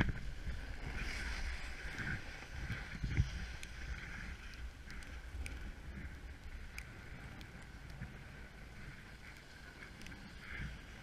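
Snowboard sliding over snow, a steady scraping rush with a low rumble of wind on the helmet-mounted camera, loudest in the first few seconds.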